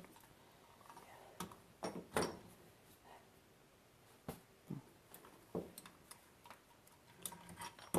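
Scattered faint metal clicks and knocks, a dozen or so spread unevenly: wrenches working on a furnace gas pipe fitting.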